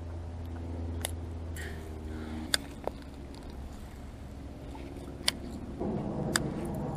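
Steady low hum of a distant motor; its pitch shifts about two and a half seconds in and it grows louder near the end. A few sharp clicks sound over it.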